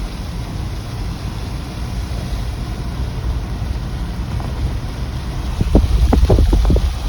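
Wind buffeting the microphone: a steady low rumble, with harder gusts coming in irregular thumps near the end.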